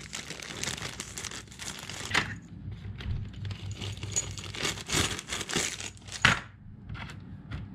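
Plastic hardware bag crinkling as it is handled and opened, with a few sharp clicks as small metal lock nuts are tipped out of it.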